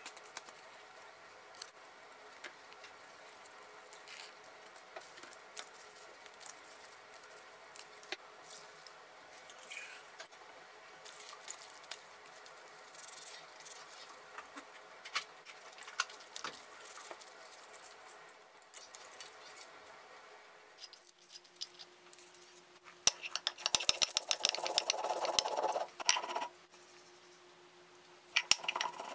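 Faint hand-handling noises over a low steady hum. About 23 seconds in, a loud stretch of dry crackling and rattling lasts a few seconds, with a shorter burst near the end: dried red chillies, mustard seeds and ginger are being put down on a stone grinding slab (sil-batta).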